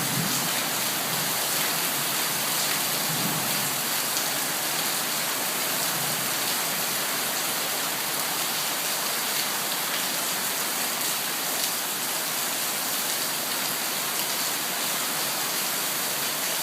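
Heavy tropical monsoon rain pouring down steadily, a dense even hiss of rain hitting the ground, roofs and pooled water.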